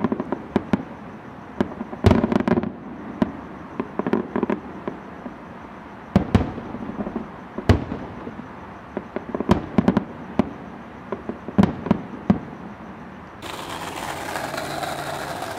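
Fireworks display: aerial shells bursting in irregular, widely spaced bangs, some in quick pairs, with crackling and rumbling after them. About thirteen seconds in the bangs stop and a steady hiss-like noise takes over.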